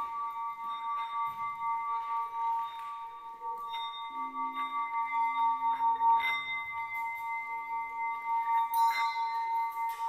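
Background music of steady, sustained ringing tones, with a few more ringing tones struck in over them about four, six and nine seconds in.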